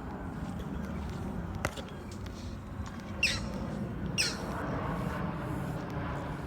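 A bird gives two short, falling calls about a second apart, over a steady low rumble.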